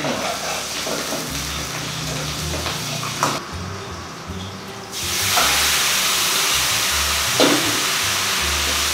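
Shallots, garlic and spring onion sizzling in hot oil in a wok as they are stirred with a ladle. About five seconds in, the sizzle jumps louder and fuller as the black-pepper crab and its sauce go into the hot wok, with a couple of ladle knocks against the pan.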